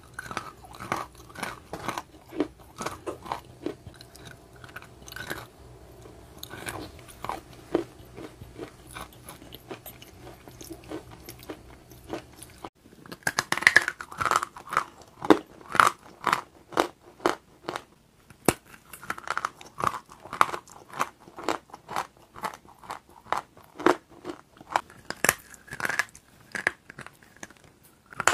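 Close-miked crunching and chewing of crisp meringue: many sharp crackly bites and chews. After a cut about halfway through, the crunching gets louder and crisper.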